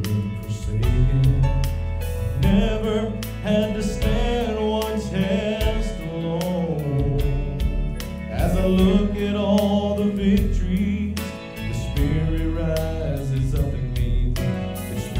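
A man singing a slow gospel song into a microphone over an instrumental backing track with drums and bass.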